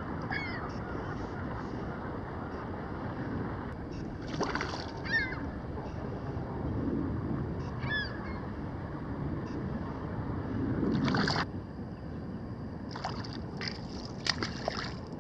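Water lapping and sloshing with wind on the microphone, broken by a few sharp splashes. Short high bird calls sound three times: about half a second in, near five seconds and near eight seconds.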